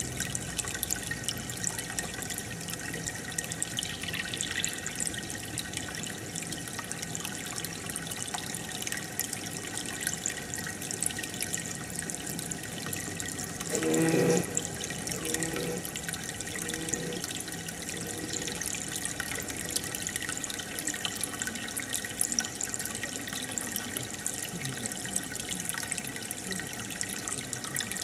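Aquarium filter and air line bubbling and trickling steadily in the tank, with a short louder pitched sound about halfway through and two fainter ones after it.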